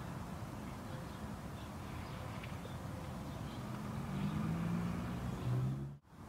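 Outdoor background: a steady low rumble with a distant engine hum, growing louder from about four seconds in, then dropping out abruptly near the end.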